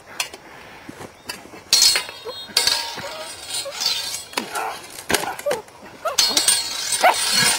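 Swords clashing in a sparring bout: several sharp metallic clangs with a bright ring, the first about two seconds in and a quick run of them near the end.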